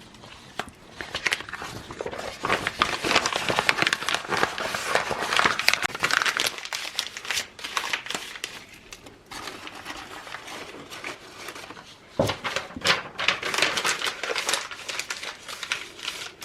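Sheets of paper being crumpled by hand to kindle a wood fire in a fireplace: a dense crackling that eases off for a few seconds in the middle and then picks up again.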